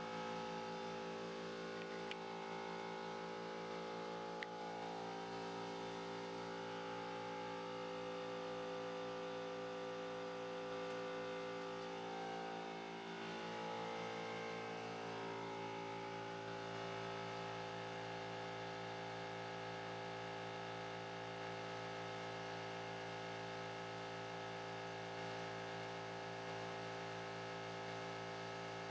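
Philips Assembleon CSM 60V pick-and-place machine humming steadily as it boots, a dense electrical hum with several steady tones. In the middle stretch some whining tones glide up and down, and there are two faint clicks in the first few seconds.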